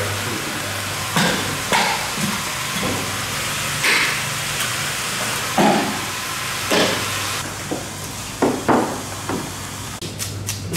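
Broad steel blade scraping the scales and slime off a whole bluefin tuna's skin, in separate sudden strokes at first and then quicker, regular strokes near the end, over a steady hiss and low hum.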